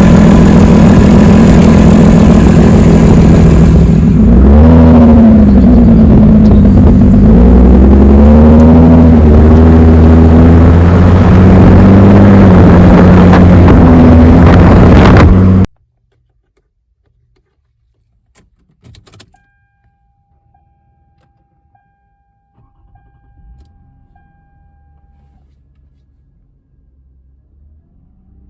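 Car engine with an exhaust leak running loud, revved up and down a few times. The sound cuts off suddenly a little past the middle, leaving only faint clicks.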